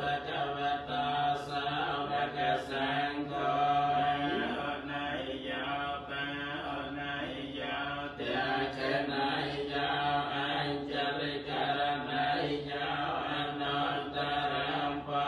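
Theravada Buddhist monks chanting a Pali recitation, a continuous, steady chant on held tones, part of a bangsukol rite offered for the dead.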